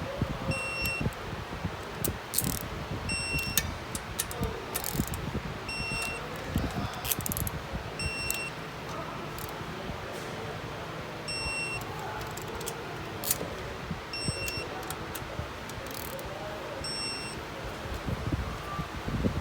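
Short electronic beeps of one steady pitch, repeating about every two and a half seconds, over steady background noise with scattered clicks and knocks.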